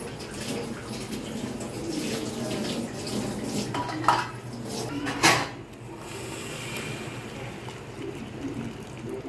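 Metal utensils clattering against a metal cooking pot of water, with two sharp clanks about four and five seconds in, and water sloshing.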